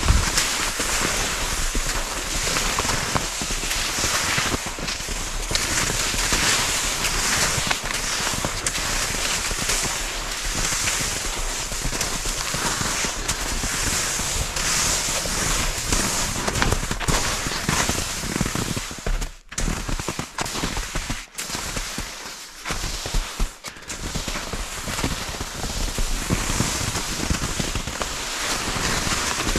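Skis sliding and crunching over crusted snow in a steady stride, a crackling swish that swells with each kick and glide. The stride breaks off briefly a few times a little past the middle.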